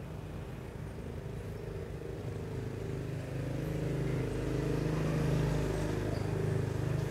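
A motor vehicle engine running with a steady low hum, slowly growing louder.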